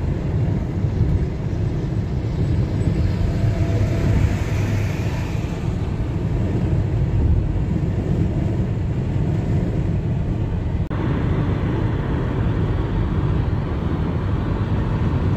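Steady road and engine rumble inside a moving car's cabin, with its tone shifting slightly about eleven seconds in.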